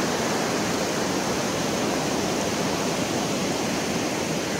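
Water of a swollen river pouring across and over the edge of a low concrete causeway: a steady, even rush of flowing water.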